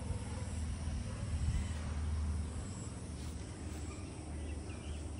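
Outdoor ambience: a low steady rumble with a few faint, high, short chirps about three seconds in.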